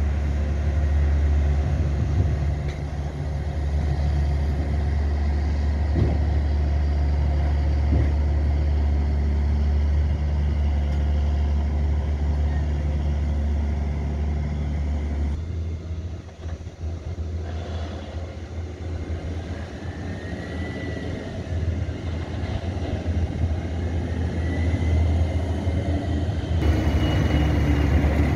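Heavy diesel engine of a John Deere 9520R tractor running with a deep, steady drone. The drone weakens about halfway through and then builds again. Twice in the later part a rising-and-falling whine sounds over it.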